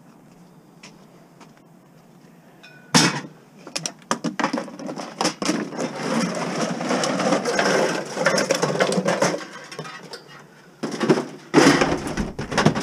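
Scrap being shifted in a van's cargo area: plastic jugs and bottles rustling and knocking, and stainless-steel sheet metal scraping and clattering as it is pulled out. After a quiet start it begins with a sharp knock a few seconds in, runs on as a jumble of rustling and clatter, and ends with a loud burst near the end.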